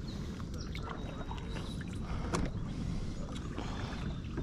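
Small knocks and clicks on and around a fishing kayak over a low, steady rumble.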